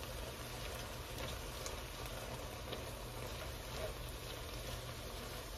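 Shrimp and garlic sizzling in butter in a skillet: a faint, steady crackling hiss with scattered small pops, over a low steady hum.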